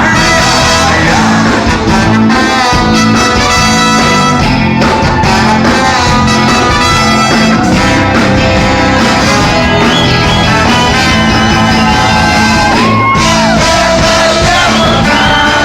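A live band playing loud music, with a singer's voice over dense, steady instrumental backing.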